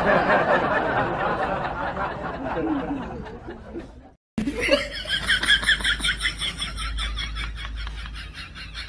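People laughing: a loud stretch of laughter for the first four seconds, then, after a brief silence, a rapid run of high-pitched laughing.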